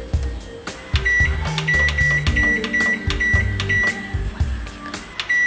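Convection microwave oven's keypad beeping as its buttons are pressed to set the baking temperature: a run of short high beeps about every half second, starting about a second in, with one more near the end. Background music plays underneath.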